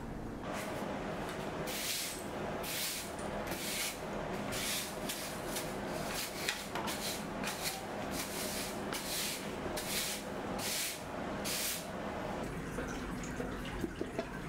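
Hand plane taking repeated strokes along a strip of wood, about one stroke a second, each stroke a short hiss. A few sharp clicks near the end.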